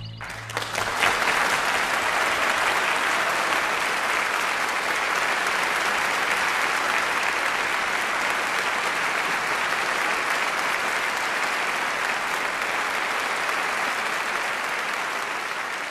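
Audience applauding: dense, steady clapping that begins about half a second in and eases off a little near the end.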